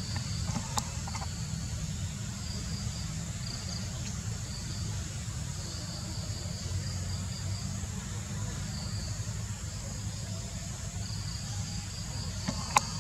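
Insects buzzing at a high pitch, coming and going in stretches of a second or more, over a steady low rumble. A sharp click sounds just under a second in, and another near the end.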